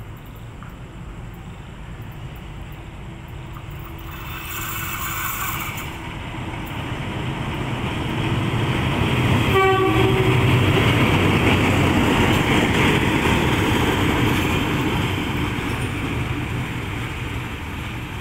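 KTM ballast train hauled by a Class 24 diesel locomotive approaching and passing: a horn blast about four seconds in, a short toot near the ten-second mark, and the locomotive and wagons rumbling louder to a peak midway, then fading.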